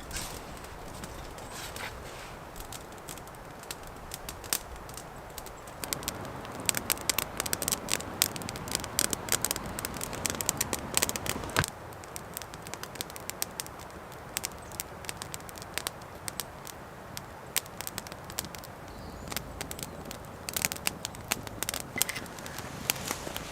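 Irregular dry crackling and snapping, many sharp clicks, densest and loudest in a stretch from about six seconds in that stops abruptly near the middle.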